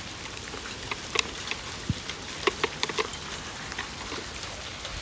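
Hailstones striking a hard surface: irregular sharp ticks, a few a second, over a steady hiss.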